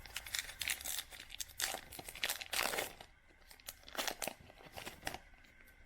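Baseball trading cards and their packaging being handled: irregular rustling, sliding and crinkling swipes, with the loudest cluster of scrapes between about one and a half and three seconds in and a few more around four seconds.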